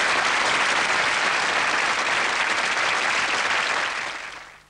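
Audience applause, a steady dense clatter of many hands clapping that fades out near the end.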